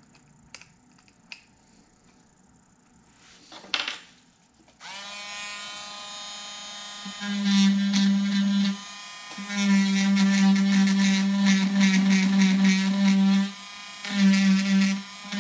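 Quiet at first, with a few small clicks as clogged debris is scraped off a rotary tool's bit. About five seconds in, the handheld rotary tool starts with a rising whine and then runs steadily. In three stretches its sound grows into a louder buzz as the spinning bit carves into the juniper's trunk, cutting a shari.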